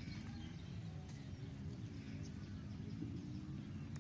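Outdoor ambience over open wet fields: a steady low rumble with faint bird chirps.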